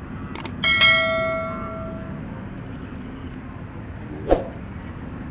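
Subscribe-button sound effect: a quick double mouse click, then a bell-like notification ding that rings out over about a second and a half. A single sharp click comes near the end, over a steady low rumble.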